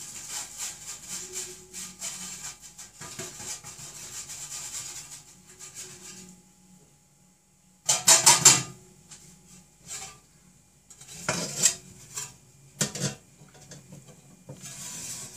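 Metal clattering from a round aluminium food dehydrator and its lid being handled: a scraping rub for about six seconds, then, after a short pause, a few loud clanks and knocks.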